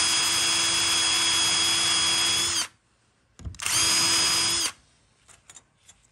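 Cordless drill spinning a bit against a drilled hole in a metal speaker housing to cut off the burr: a steady motor whine with a scraping cutting hiss. It runs in two goes, the first stopping about two and a half seconds in, a shorter one a second later, followed by a few faint clicks.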